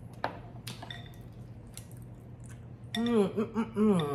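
Two light clinks of cutlery on dishes, then a woman's closed-mouth "mmm" of enjoyment while eating, hummed in four rising-and-falling pulses near the end.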